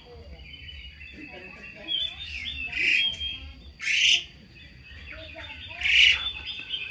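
Baby monkey giving short, shrill squealing cries, three loud ones about three, four and six seconds in, over faint high chirping while it is being soaped.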